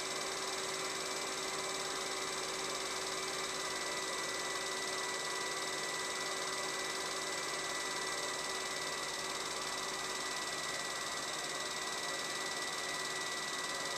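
Film projector running: a steady mechanical whir and hiss with a faint fixed whine, unchanging throughout.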